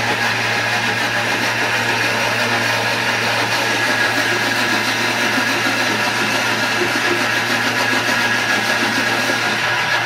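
Thermomix food processor running steadily at full speed, a constant motor hum with a whirring rush on top, blending apples into a smooth purée.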